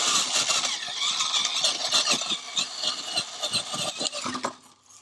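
Axial SCX6 RC crawler driving under throttle: its electric motor and drivetrain whine, with rapid clicking from the differentials jumping teeth. The owner thinks the plastic housing flexes and lets the gears slip. It cuts out about four and a half seconds in.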